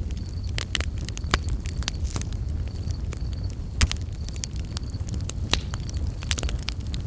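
Campfire burning with a steady low rumble and frequent sharp crackles and pops from the burning wood, one louder pop near the middle. Crickets chirp faintly in short high bursts throughout.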